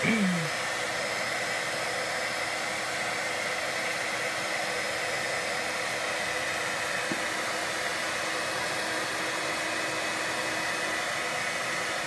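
Steady rush of air from an electric blower forcing air through a freshly welded exhaust pipe to test the repair for leaks, with a steady motor hum under the rushing air.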